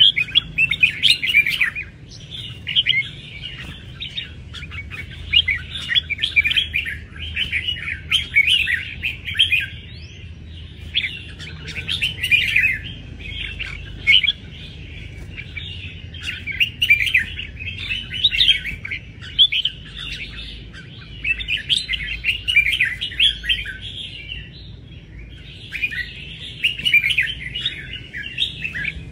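Red-whiskered bulbul singing: a long string of quick, varied warbling phrases, each a second or two long, with short breaks between them.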